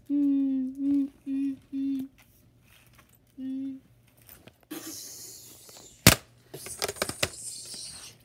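A voice hums several short steady notes, then rustling handling noise with a sharp plastic knock about six seconds in and a few lighter clicks, as a toy lightsaber is brought down against a plastic toy skeleton.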